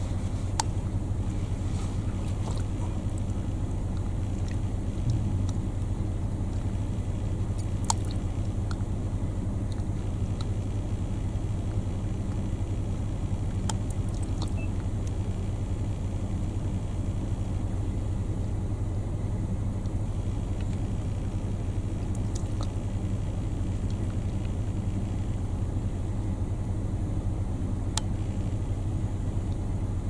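Steady low engine rumble with an even hum, unchanging throughout, with a few faint clicks now and then.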